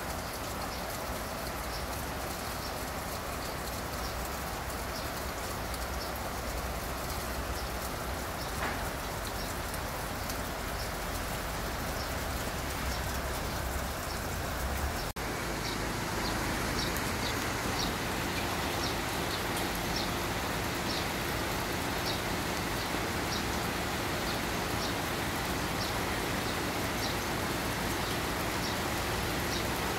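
Steady rain falling on wet paving stones, with short high ticks every second or so. A low rumble underneath stops abruptly about halfway through.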